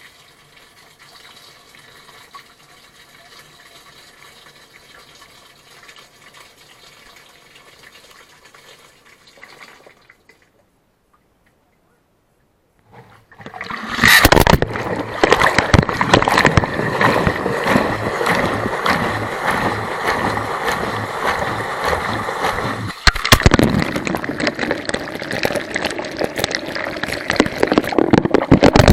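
Washing machine running: a faint rush of water for the first several seconds, then, after a brief gap, a much louder sloshing churn with a regular low pulse.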